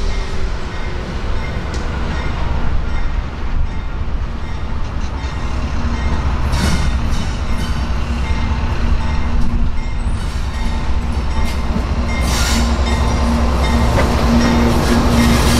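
Union Pacific freight train's diesel locomotives approaching and passing close by: a heavy, continuous engine rumble with a steady low drone that grows louder as the units draw level. A couple of brief high-pitched squeals cut through, about seven and twelve seconds in.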